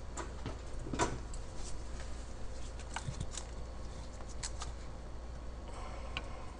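Scattered light clicks and taps as a fuel rail with its injectors is fitted and pressed down into the intake manifold of a 4.0-litre V8, over a low steady hum. The clearest click comes about a second in, with a few more around three seconds in.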